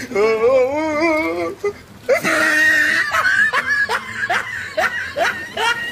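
Laughter: a wavering, drawn-out laugh, then a loud burst and a run of short rising ha-ha strokes, about two a second.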